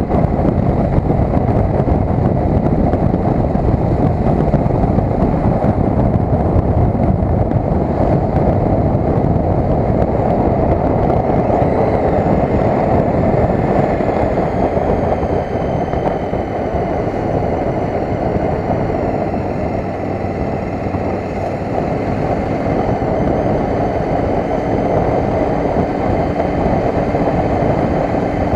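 Wind buffeting the built-in microphone of a cheap helmet-mounted action camera on a moving 2012 KTM 990 SMT, with the bike's V-twin engine running beneath it. The wind noise eases slightly in the second half as the bike slows.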